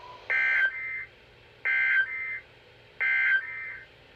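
NOAA Weather Radio SAME digital data bursts heard through a weather radio receiver's speaker: three identical short, harsh two-tone bursts, about a second and a third apart.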